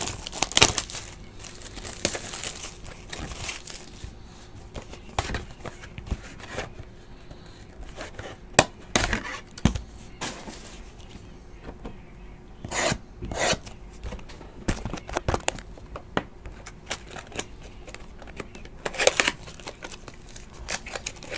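Hands handling a cardboard box of trading cards and a foil card pack: rubbing, crinkling and tearing in scattered short bursts, with a few light clicks.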